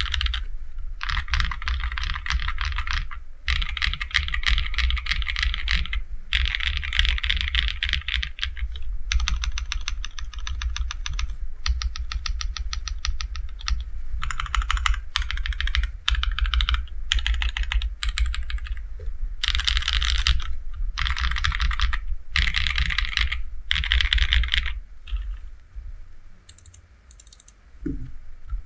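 Typing sound test on an AKKO ACR Top 40 40% mechanical keyboard with AKKO CS Snow Blue Grey linear switches (50 g) and PBT double-shot MDA keycaps: fast runs of keystrokes in bursts with brief pauses between them. It goes quieter and sparser near the end.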